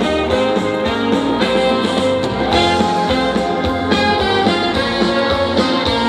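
Instrumental intro of a pop/trot song with a steady beat, played loud over a concert sound system.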